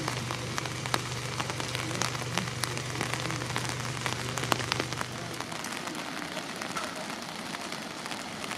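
Rain falling on a wet street, with sharp close drip ticks through it. A low steady hum underneath stops about five seconds in.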